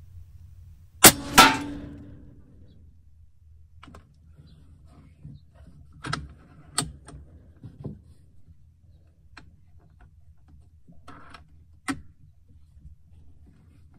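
A Benjamin Bulldog .457 big-bore PCP air rifle fires one shot through a DonnyFL Emperor moderator: a sharp report about a second in, followed a moment later by a second crack with a short ringing tail. After it come a few light clicks and knocks of the rifle being handled on the bench.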